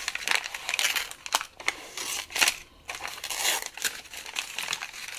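Protective paper backing being peeled off a laser-cut acrylic sheet, crinkling and crackling irregularly as it pulls away and folds in the hand, with the loudest crackle about halfway through.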